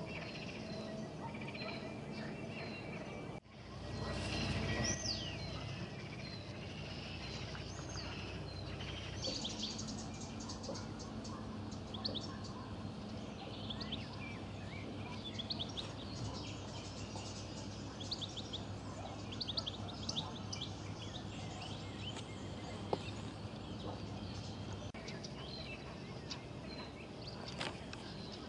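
Songbirds chirping and calling over a steady low background hum. A brief dropout comes about three seconds in, followed by a louder stretch with a descending whistled call, then scattered quick chirps.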